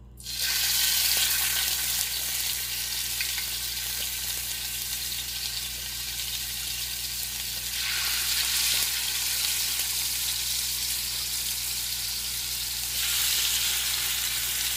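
Marinated goat chops sizzling in hot oil on an iron tawa, the sizzle starting suddenly as the first chop goes in and growing louder about eight and thirteen seconds in as more pieces are laid on the pan.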